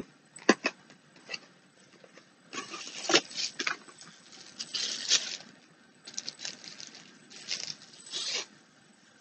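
A few sharp clicks from the cardboard wand box being opened, then bursts of crinkly rustling as bubble wrap is handled and pulled off a replica wand.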